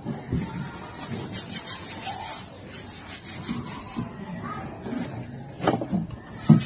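Metal nail being rubbed against a stone, in irregular scraping strokes, with two sharp knocks near the end.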